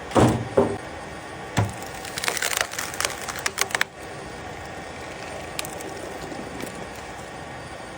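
Pieces of wood being knocked and handled: three sharp knocks in the first two seconds, then a quick run of crackling clicks lasting about two seconds.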